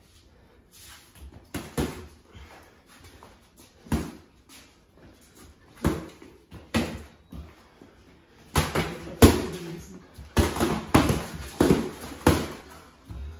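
Boxing gloves landing punches, heard as sharp thuds: a few single hits spread out at first, then a quick flurry of loud blows and scuffling for about four seconds near the end.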